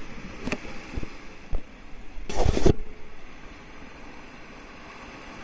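Sea surf washing against shoreline rocks, with wind on the microphone. A few sharp knocks in the first second and a half, and a louder rush of noise about halfway through.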